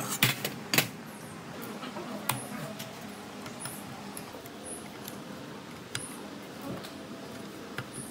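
Scattered sharp clicks and knocks of tools and parts being handled: three close together in the first second, then single ones every second or two.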